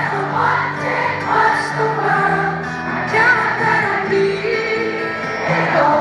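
A live pop band playing, with singing over it.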